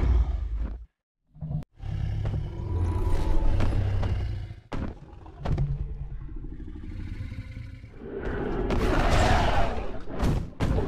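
Film-style dinosaur roar and growl sound effects, deep, in several bursts broken by short silences, with a harsher, noisier roar near the end.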